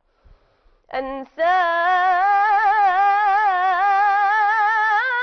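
Solo female voice singing in Arabic religious-chant (ibtihal) style: after a brief note about a second in, one long held note ornamented with wavering turns of pitch.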